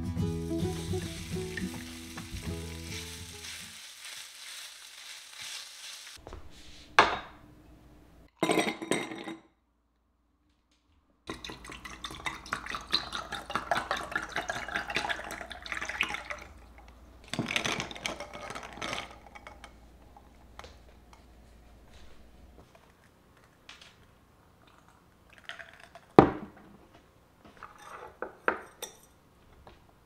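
Sliced beef sizzles in a hot stainless-steel frying pan, the hiss dying away over the first few seconds, with a couple of knocks of cookware. After a short gap, a spoon stirs ice cubes in a glass with a run of rattling clinks. Near the end a single sharp knock comes as the glass is set down on a wooden table.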